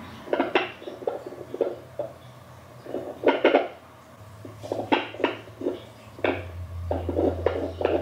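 Home fetal doppler's speaker giving irregular scratchy crackles and knocks as the probe is moved over the belly, with a low hum coming in about halfway through. No heartbeat comes through: the search is not finding it, which is common this early in pregnancy.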